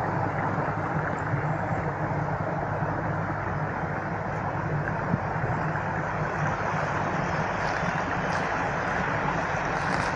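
Steady rushing water, an even unbroken noise, with a few faint high bird chirps from about six seconds in.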